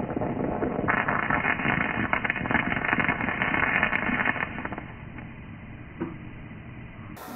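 Gauge 1 live-steam model locomotive spitting steam and water with a crackling hiss that starts about a second in and fades after about four seconds; a single click near the end.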